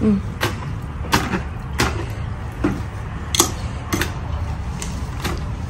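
A wooden post pounding wilted mustard greens down into a plastic bucket to pack them for gundruk fermentation, giving dull knocks about once a second at an uneven pace. Under them runs a steady low rumble, likely the propane burner under the wok.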